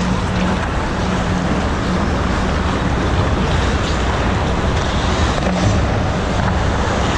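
Steady rushing noise of an indoor ice rink during a hockey game, with a low hum running through it.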